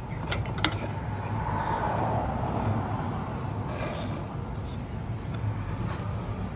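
Steady low rumble of background road traffic, with a few light clicks within the first second as metal cans on the shelf are handled.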